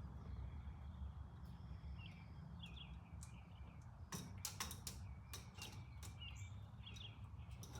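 Faint bird chirps over a low steady hum, with a few sharp clicks about four seconds in.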